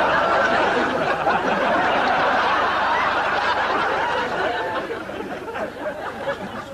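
Studio audience laughing, dying away over the last couple of seconds.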